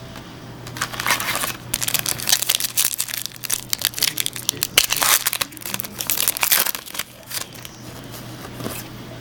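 Foil trading-card pack wrapper crinkling and crackling as it is handled and opened, in a dense run from about a second in, easing off after about seven seconds.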